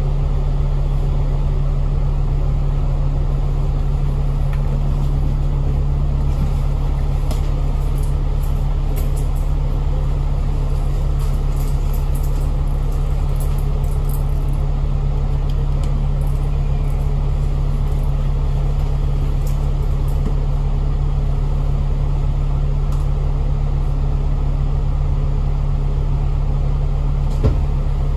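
A Citybus bus's engine drones steadily with no change in pitch, and a few faint ticks sound over it.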